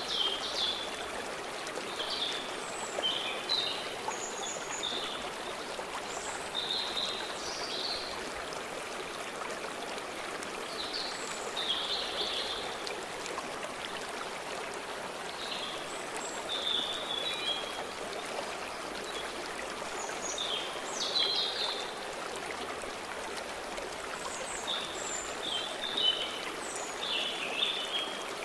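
A flowing stream rushing steadily over its bed, with small songbirds singing short, high chirping phrases every second or two on top of it.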